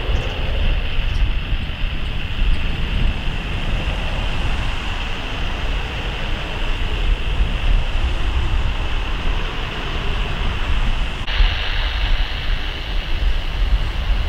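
Hawker Beechcraft 400XP business jet's twin turbofans at take-off power as it climbs away, a steady jet roar with a whine over strong wind rumble on the microphone. About 11 seconds in it cuts suddenly to the sound of another jet's engines on the runway.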